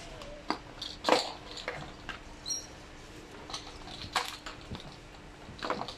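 Hard plastic clicks and knocks as a toy bar is fitted and clipped onto a baby jumper's plastic seat tray, the loudest knock about a second in, with a short high squeak about two and a half seconds in.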